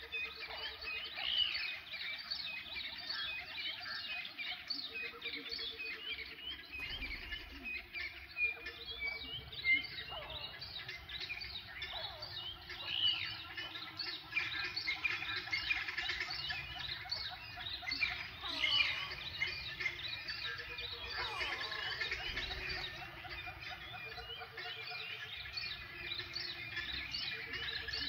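Dense chorus of wild birdsong, many overlapping chirps and trills. Underneath, a low pulsed trill about a second long recurs every few seconds.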